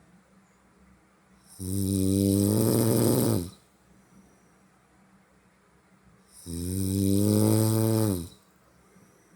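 Snoring: two long snores, each about two seconds, roughly five seconds apart, with quiet between them. The second snore drops in pitch as it ends.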